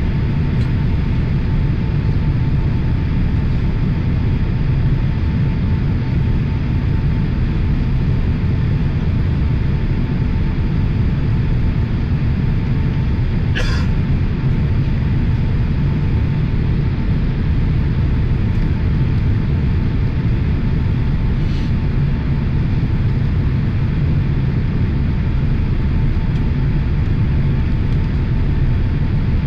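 Steady cabin noise of an airliner's jet engines and airflow, heard from a window seat during the approach to landing, with a faint steady whine above the rumble. A single short click about halfway through.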